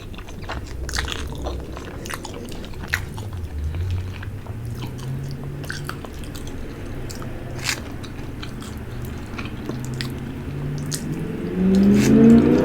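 Close-up mouth sounds of someone eating a boiled fish head: sucking, smacking and chewing with many scattered wet clicks. A louder voiced sound rising in pitch comes near the end.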